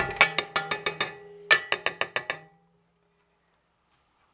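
A spatula tapped quickly against the rim of a stainless steel mixing bowl, the bowl ringing after each tap. The taps come in two quick runs of about a second each with a short pause between, and the ringing dies away about two and a half seconds in.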